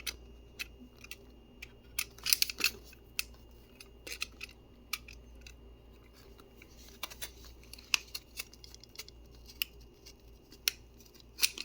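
Packaging being handled and opened by hand: scattered sharp clicks and short crisp scraping rustles, with brief clusters of them now and then.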